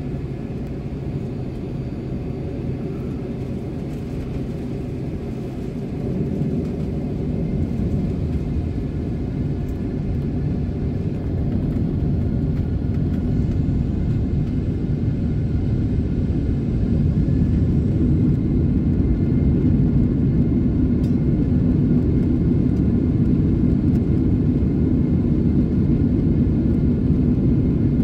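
Cabin noise of a Boeing 767-400ER on its takeoff roll: engine noise and a deep runway rumble grow louder from about six seconds in as the jet speeds up, then hold loud through the second half.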